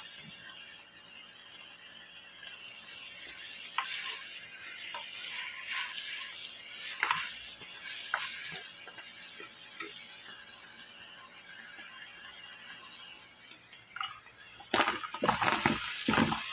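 A wooden spatula scrapes and taps against a wok as a chicken and vegetable stir-fry is stirred, over a steady sizzle of frying. Near the end, louder and quicker scraping starts as a pan of sautéed tuna is stirred.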